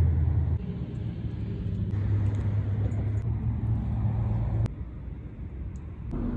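WPL B36 6x6 RC truck's small electric motor and gearbox running, a low drone with tyres rolling over wood chips. The drone eases back about half a second in, picks up again around two seconds, cuts off sharply with a click a little past four and a half seconds, and comes back at a higher pitch near the end.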